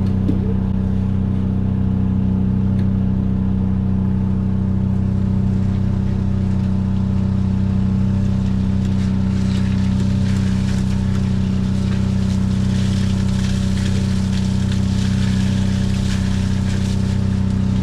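Fishing boat's engine running at a steady speed, with a slow regular throb underneath. A hiss rises over it about halfway through and fades near the end.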